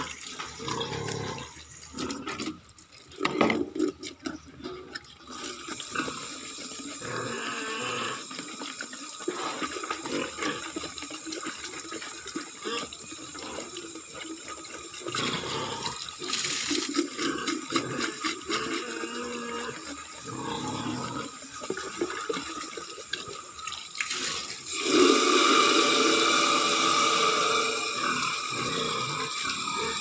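Water running from an outdoor faucet over a plastic chicken waterer as it is rinsed and scrubbed by hand, with a few knocks of plastic a few seconds in. Near the end the stream gets louder as it fills a plastic jug.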